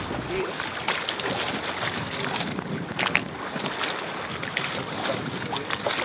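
Wind buffeting the microphone and sea water lapping against a small boat's hull, with a few light clicks.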